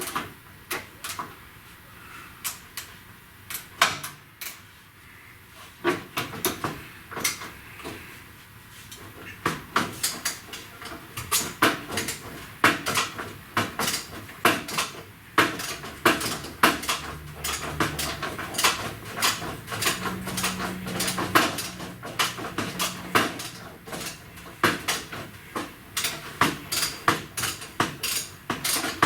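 Many sharp metallic clicks and clanks, often in quick runs of several, as a wrench works bolts loose on a car's radiator core support.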